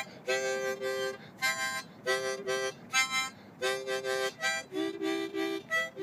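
Harmonica played in short puffs of chords, several reeds sounding together, about six phrases with brief breaks between them; about five seconds in, the chords move lower.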